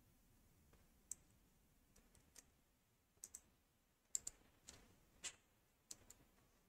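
Faint, scattered clicks of a computer mouse and keyboard, about ten spread unevenly, some in quick pairs, over near silence.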